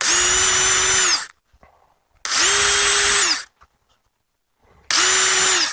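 Electric drill run in three short bursts of about a second each, holding a steady whine at constant speed, drilling holes through gasket material.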